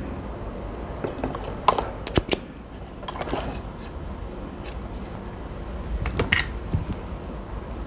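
Small hard tools and parts being handled on a workbench: a few separate sharp clicks and light knocks, two close together about two seconds in and another about six seconds in.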